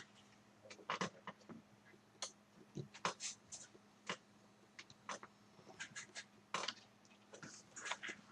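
Light, irregular clicks and taps from hands and a small tool working on a laptop during reassembly, with a faint steady hum underneath.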